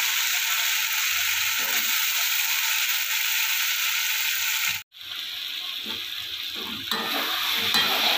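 Masala frying with a steady sizzle in a steel kadhai as boiled potatoes are broken in by hand. The sound drops out for a moment about five seconds in; after that the sizzle is lower, with the clatter and scrape of a steel spatula stirring.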